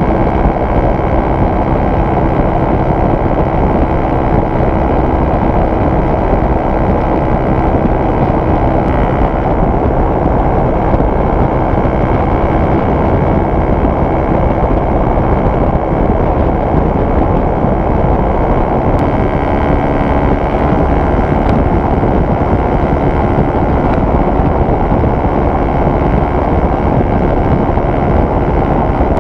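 Honda RS150R's single-cylinder engine held at about 8,000 rpm at highway speed, under a steady rush of wind on the microphone. The engine note drops slightly about two-thirds of the way in.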